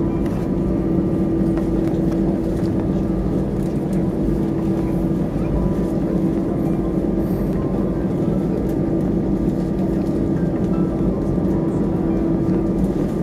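Cabin noise of an Airbus A320 heard from a seat over the wing while it taxis at low engine power. It is a steady hum with a held mid-low tone and a low rumble, with no spool-up.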